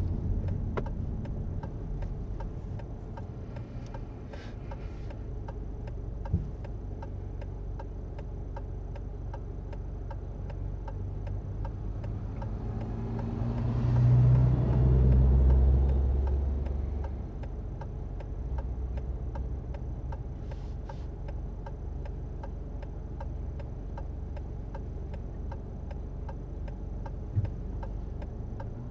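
A car's turn indicator ticking steadily over a low engine idle, heard inside the cabin. In the middle a tanker truck rumbles loudly past for a few seconds.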